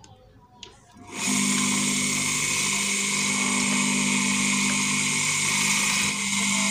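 A homemade grinder built from a water-pump electric motor, with a cutting disc on its shaft, switches on about a second in and runs at full speed with a steady hum and a loud high whine.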